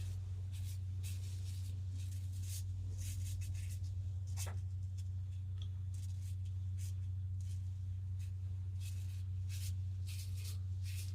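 Vintage GEM push-button single-edge razor scraping through lathered stubble in short, irregular strokes, over a steady low hum.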